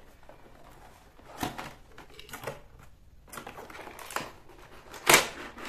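A cardboard product box being opened by hand: scattered rustles and scrapes of cardboard and packaging, then one sharp snap about five seconds in, the loudest sound.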